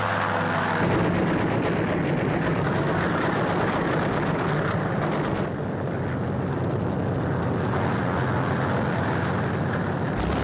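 Piston-engine propeller aircraft in flight, its engines running with a steady drone.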